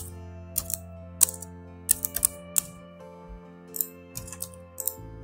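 Computer keyboard keystrokes, a dozen or so irregular clicks, with background music of steady held notes underneath.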